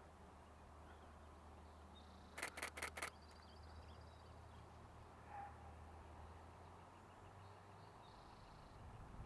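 Four rapid clicks of a Nikon Z6 II's shutter firing a short burst, over a faint background with a low hum and a few faint high bird chirps.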